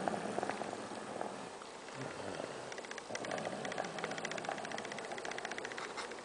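A young boy snoring in his sleep, each breath a steady fluttering rattle.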